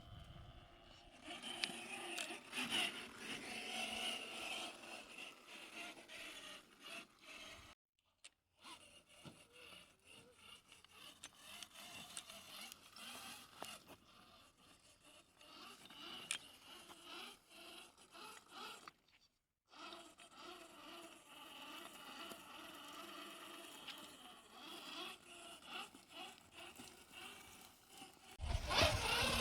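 RC trail truck crawling over stone: a faint electric-motor and gear whine with tyres scraping on rock. A much louder sound comes in right at the end.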